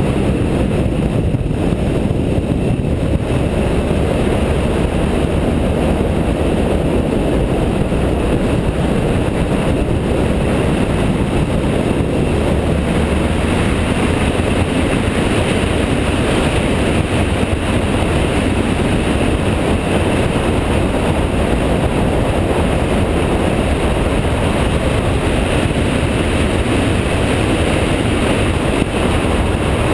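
BMW F650GS motorcycle ridden at steady road speed: the engine's running mixed with wind rushing over the onboard microphone, a loud, even, unbroken noise.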